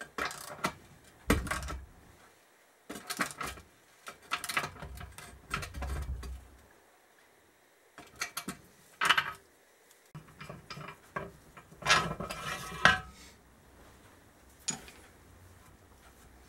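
Irregular metal clicks and clinks of a hand tool turning the nut on a rear-wheel spindle and spacers, used as a makeshift press to draw a new bearing into a Suzuki Hayabusa's aluminium swingarm pivot. A few of the clinks ring briefly, most densely about twelve seconds in.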